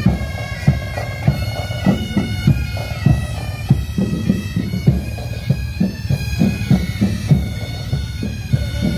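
Bagpipes playing a melody over a steady drumbeat, as from a marching pipe band.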